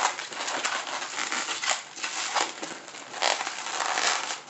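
Inflated latex 260 twisting balloons rubbing and crackling against each other and the fingers as they are twisted into pinch twists. An uneven run of scratchy rubs and sharp crackles.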